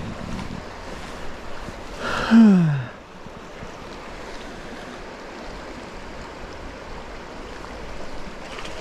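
Steady rushing of a mountain trout stream. About two seconds in, a man gives a short wordless vocal sound that slides down in pitch.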